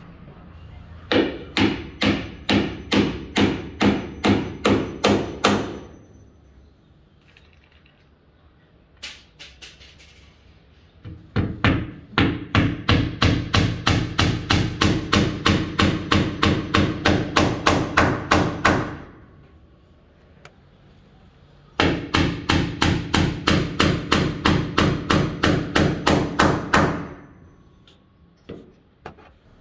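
Hammer driving nails into wood in three long runs of steady blows, about three a second, with short pauses and a few lighter taps between them.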